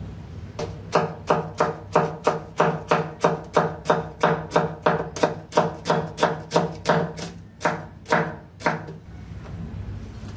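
Cleaver chopping red chilies on a wooden cutting board: an even run of knife strikes, about three a second, that stops about a second and a half before the end.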